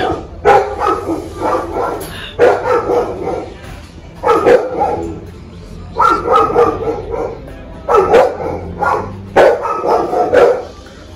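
A dog barking again and again in short bouts, a new bout starting every second or two.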